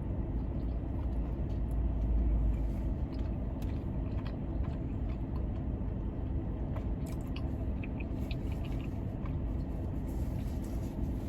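Biting and chewing food, with scattered small crunching clicks, over the steady low hum of a car's air conditioning.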